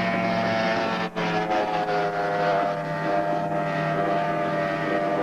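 Outboard motor on a small racing powerboat running flat out at speed, a steady engine drone. There is a short break about a second in, after which the note settles slightly lower.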